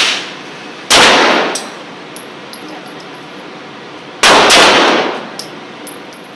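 Glock 9mm pistol fired, one shot about a second in and another about four seconds in, each loud report ringing off the walls of an indoor range.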